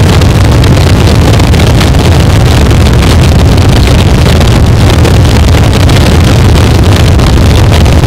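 Harsh noise wall: a dense, unchanging wall of heavily distorted, crunchy static, very loud, with its weight in a low rumble.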